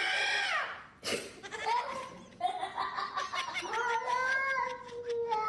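A cat yowling in long, drawn-out meows that waver up and down in pitch, with a short sharp click about a second in.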